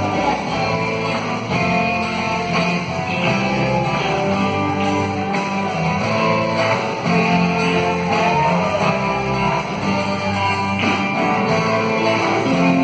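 Band playing an instrumental passage led by strummed guitar, with bass and drums underneath.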